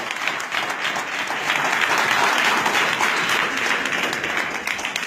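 Audience applauding: many people clapping together, a little louder around the middle.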